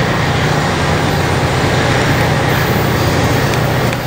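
A bi-level commuter train pulling away from the platform: a steady low drone from its diesel locomotive and the cars running on the rails.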